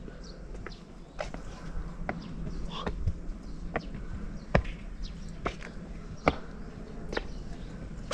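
Footsteps on a hard surface, a sharp step roughly every second, over a low steady hum.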